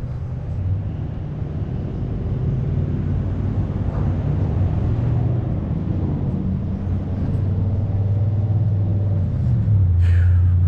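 Low, steady rumble of a motor vehicle's engine idling or running, louder near the end, with a brief high squeak about ten seconds in.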